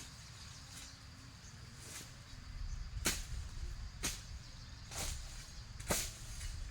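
Four sharp strikes about a second apart, starting about three seconds in, over a low rumble.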